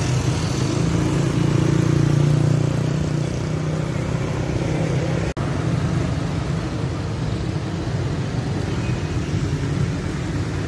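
Loud, steady motor-vehicle and traffic noise, a continuous low rumble that breaks off for an instant about five seconds in.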